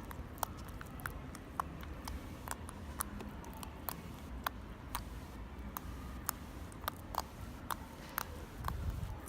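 Slime being squeezed and poked by hand, giving irregular sharp little clicks and pops, a few a second, over a low steady rumble.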